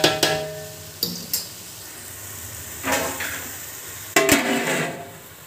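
Stainless-steel cookware clanking: a few knocks and lighter taps of a utensil on the steel pot, each ringing briefly, then a louder ringing clank about four seconds in as a steel lid is set on the pot.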